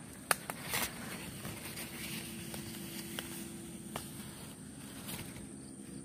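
Close handling noise of leaves brushing and rustling against the phone as a hand pushes through foliage to a bird nest, with a sharp click about a third of a second in, another about a second in, and a few lighter ticks after.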